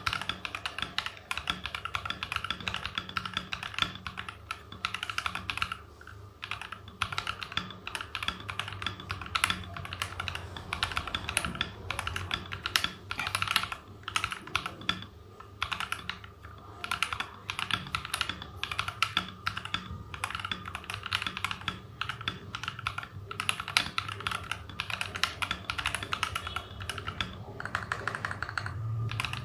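Typing sound test on a mechanical keyboard fitted with thick Cherry-profile PBT dye-sub keycaps: a fast, continuous run of keystrokes with a few brief pauses.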